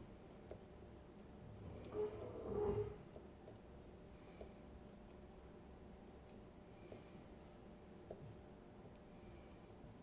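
Faint, sparse clicks of lock picks and a tension tool working the pins of an ABUS TS 5000 pin tumbler lock, with one brief louder scrape and squeak about two seconds in.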